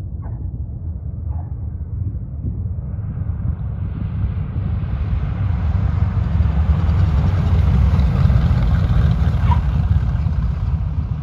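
Twin radial engines (Pratt & Whitney R-1830s) of a Douglas C-47-type transport at takeoff power during its takeoff roll: a deep rumble that grows louder as the plane approaches and passes, loudest about eight seconds in, then begins to fade.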